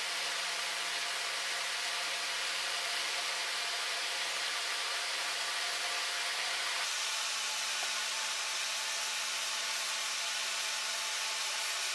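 A steady hiss with a faint low hum, like a fan or blower running. There are no clicks or knocks. The tone shifts slightly about seven seconds in.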